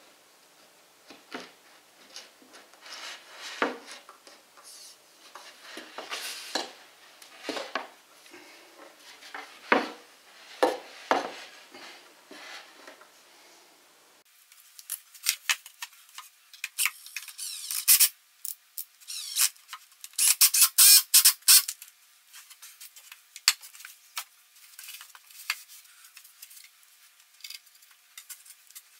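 Laminated particleboard bookcase panels being handled and fitted together by hand: scattered knocks, taps and scrapes, with a dense run of loud clattering knocks a little past the middle.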